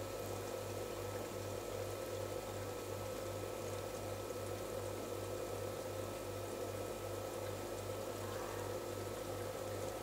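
Aquarium pump running steadily: a constant low hum with a wash of bubbling, trickling water.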